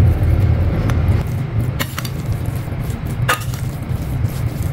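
Slotted steel spatula mixing cooked rice in a stainless steel pan, scraping and clinking against the metal twice with a brief ring. A steady low hum runs underneath.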